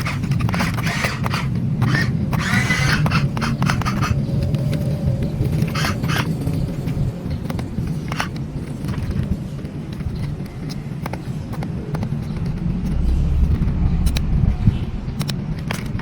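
Remote-control toy excavator working: a steady low rumble with scattered short clicks and scrapes.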